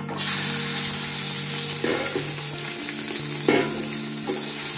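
Sautéed onions tipped into hot oil in a chembu pot, sizzling steadily and being stirred. The sizzle starts sharply just after the start, with a few short scrapes from the stirring.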